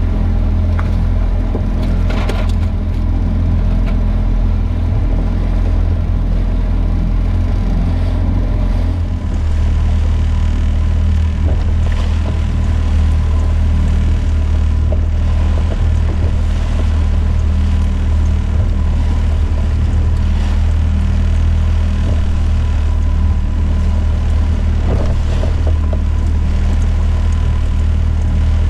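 Small outboard motor running steadily, a low even drone whose pitch shifts slightly about nine seconds in, with a few light knocks.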